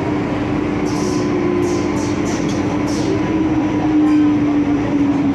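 MTR Tsuen Wan line M-Train electric multiple unit running, with a steady drone and motor tone that rises slightly about four seconds in. A run of short hisses comes between about one and three seconds in.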